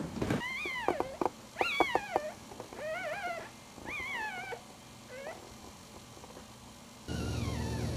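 Newborn puppies whining: about five high, squeaky calls that rise and fall, in the first five seconds. Near the end the sound switches abruptly to a steady hum.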